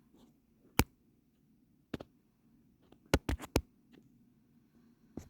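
A few sharp clicks and knocks with quiet between: single ones about a second and two seconds in, a quick run of three a little past three seconds, and one more near the end.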